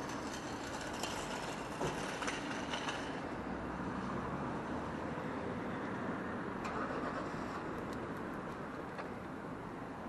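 Street ambience: steady traffic noise from cars on the road alongside, with a few light clicks, two or three about two seconds in and a few more near the end.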